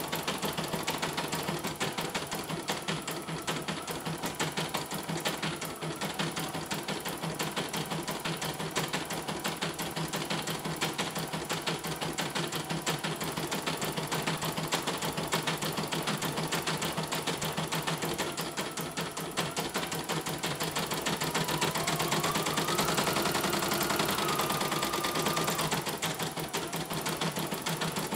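CNY E900 portable computerised embroidery machine stitching a design, its needle clattering in a rapid, even run of strokes while the hoop carriage shifts the fabric. It is running a test embroidery after a mainboard replacement.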